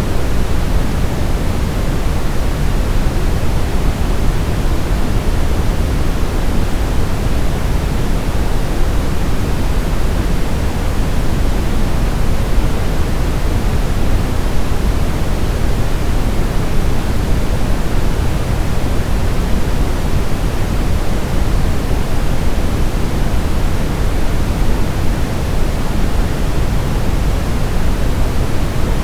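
Continuous generated sleep noise, a steady unbroken hiss with most of its weight in the low end, like pink noise.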